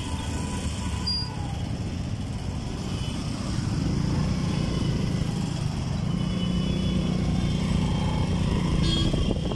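Motorbike and scooter engines running in street traffic, heard from a moving two-wheeler: a steady low engine hum that grows louder about three and a half seconds in.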